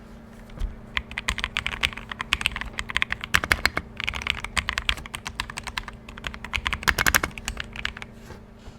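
Typing on an Aula F68 mechanical keyboard with linear switches: fast runs of keystrokes with short pauses between them, demonstrating how the switches sound.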